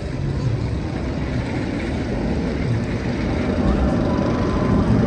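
Roller coaster car rumbling along its track, growing gradually louder as it approaches.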